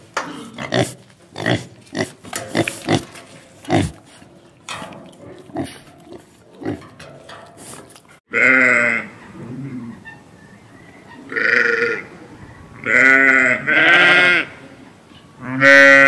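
Pig grunting in a quick run of short grunts, then, about eight seconds in, a sheep bleating: five separate calls, each with a wavering pitch.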